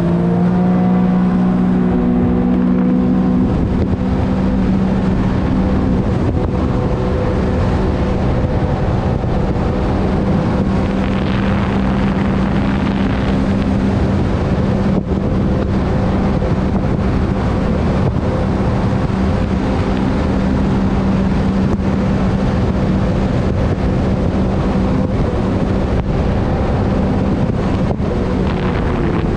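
Sea-Doo GTR 230 personal watercraft running at speed. Its engine climbs in pitch around the start as it accelerates, then holds a steady drone at about 60 mph over a rush of wind and water.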